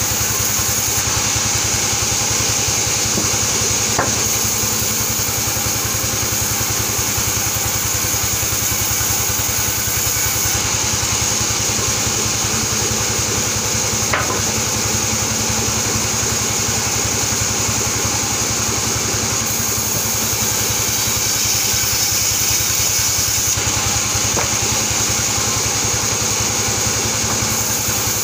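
Sawmill band saw running and ripping a plank of albasia (sengon) wood, over the steady drone of the machine's drive and a steady high whine. A light tick sounds three times, about ten seconds apart.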